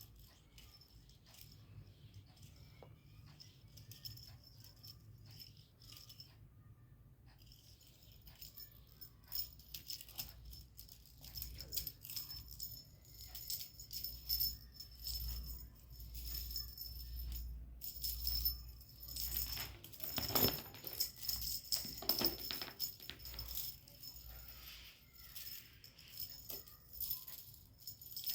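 Faint, irregular rattling and jingling, growing louder about nine seconds in.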